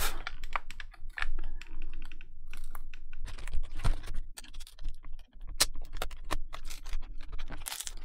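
Logitech K800 keyboard's plastic case clicking and knocking irregularly, several times a second, as its taped-on bottom cover is pried up with a metal pry tool and pulled by hand.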